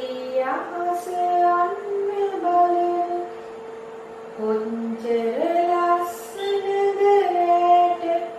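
A woman's voice singing a slow children's song, long held notes stepping up and down, over a steady hum.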